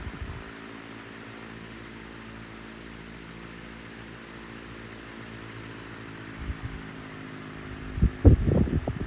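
1967 Hunter CG16 16-inch commercial-grade oscillating table fan running with a steady electric-motor hum. From about six and a half seconds in, gusts of its air blast buffet the microphone, loudest near the end.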